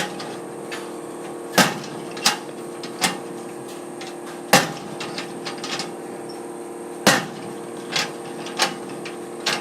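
Locker door being opened and shut again and again: a run of sharp bangs and latch clicks, the loudest slams about one and a half, four and a half and seven seconds in, over a steady hum.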